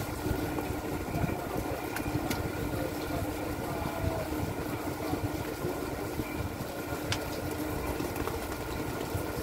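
Purse seine fishing boat's engine running steadily at low revs, with a few light clicks or knocks around two seconds in and again near the end.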